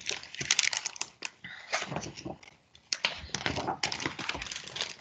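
Paper pages of a picture book being handled and turned: a quick, irregular run of rustles and soft taps.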